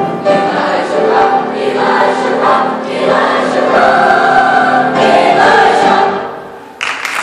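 An eighth-grade choir of mostly girls' voices singing together, the final chord fading out about six seconds in. Applause breaks out just before the end.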